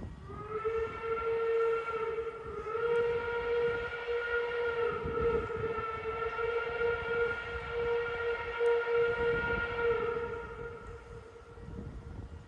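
Steam locomotive whistle blown in one long single-note blast of about ten seconds, sliding up at the start, dipping briefly, then holding steady before fading away.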